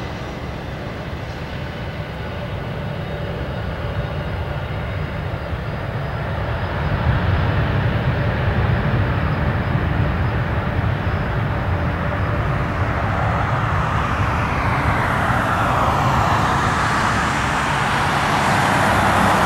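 Airbus A320-200 jet engines on the landing roll-out just after touchdown: a steady rushing jet noise that grows louder about seven seconds in and swells again toward the end.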